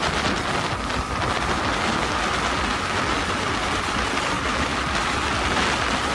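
Wind rushing over the microphone of a Yamaha MT-15 ridden at high speed, over the steady running of its single-cylinder engine. A faint, steady high whine sits in the noise throughout.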